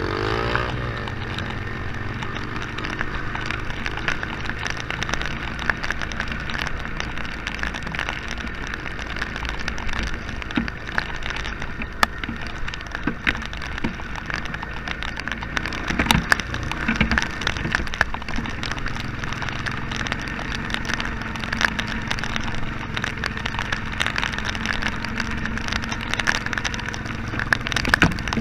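Honda Fourtrax ATV's single-cylinder engine running steadily at low revs, with rain pattering and many sharp ticks of drops hitting.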